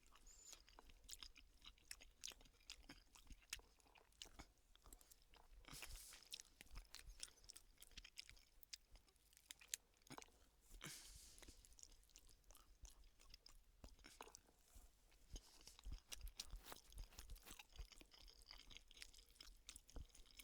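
Faint, close chewing of a mouthful of food, with many small irregular clicks.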